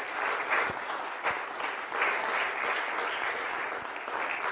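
A congregation applauding, many hands clapping steadily.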